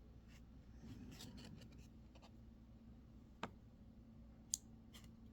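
Near silence with faint handling of trading cards: a soft sliding rustle about a second in, then two light clicks past the middle.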